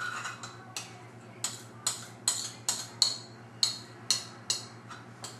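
Spoon tapping against a mixing bowl, about ten sharp taps at a steady pace of two to three a second starting a second or so in, knocking the last of the banana bread batter out of the bowl into the loaf pan.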